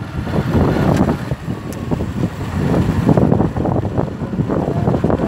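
Wind buffeting the microphone of a moving vehicle, with the vehicle's engine running underneath, in uneven gusts.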